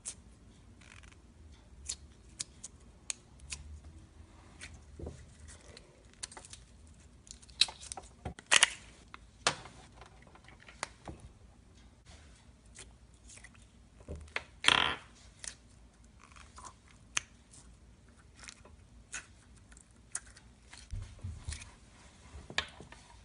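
Slime being handled: scattered short sticky clicks and pops, with two louder, longer pops about eight and a half and fifteen seconds in.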